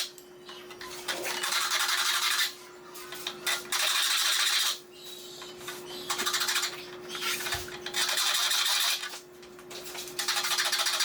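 Hand file rasping across the steel teeth of a Disston D-23 handsaw as it is sharpened: about five strokes, one every two and a half seconds or so.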